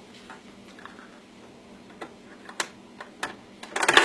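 Scattered light clicks and taps of a plastic sound toy being handled, its buttons being pressed. Just before the end, a loud sound starts playing from the toy.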